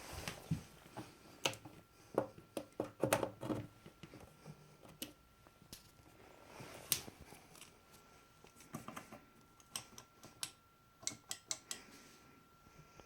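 Irregular clicks and light knocks of small hard objects being handled, in bunches, over a faint steady high tone.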